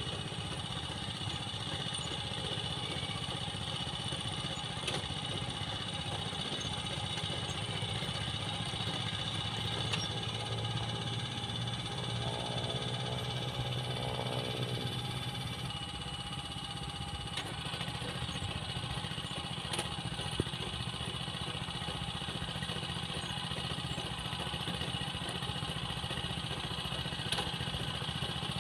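Small engine of a riding rice transplanter running steadily as the machine plants in a flooded paddy.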